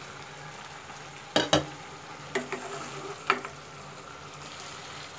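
Hilsa fish heads and tails sizzling in a mustard-oil masala in a wok, a steady frying hiss. A spatula stirs through the pan with a few knocks against it, the loudest about a second and a half in.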